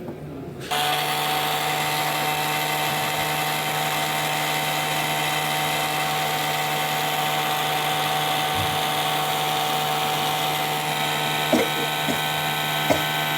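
Hot air gun blowing steadily, switched on under a second in, heating the graphics card's GPU chip and VRAM to reflow them. Two small knocks near the end.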